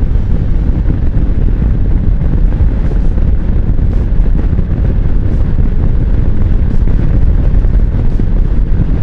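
Steady heavy wind noise on the microphone of a cruiser motorcycle at road speed, a Kawasaki Vulcan, with the bike's engine and road noise running underneath.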